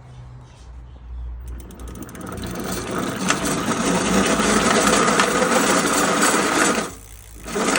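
E-bike hub motor running up, its gears making a harsh, loud clattering, grinding noise that builds over the first few seconds, stops about seven seconds in, then starts again briefly near the end. It is the sign of damaged nylon gears inside the motor, as the mechanic suspects.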